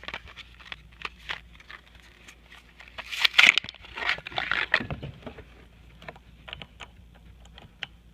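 Hand-handling noises of a car brake light bulb being swapped: light plastic clicks and rustling, busiest about three to five seconds in.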